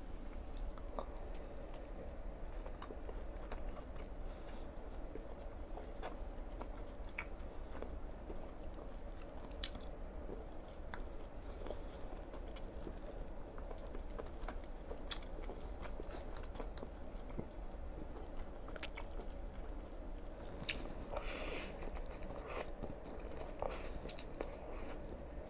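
Close-miked eating: a person chewing and biting mouthfuls of beef sausage and Chapaghetti black bean noodles, with small clicks of a fork against the plate. A brief slurp of noodles comes near the end, over a low steady hum.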